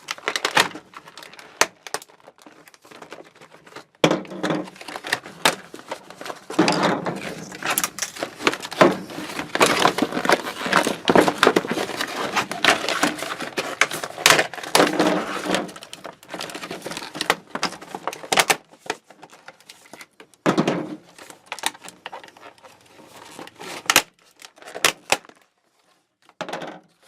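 Stiff plastic retail packaging of a screwdriver set being wrestled and torn open by hand, crackling and crinkling in irregular bursts with sharp snaps, busiest in the middle. The package is deliberately hard to open, to deter shoplifting.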